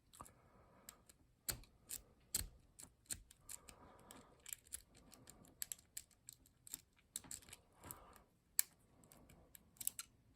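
Lock-picking rake and tension wrench working in a lock's keyway: quick, irregular light metallic clicks and ticks as the rake rocks over the pins, without the lock opening.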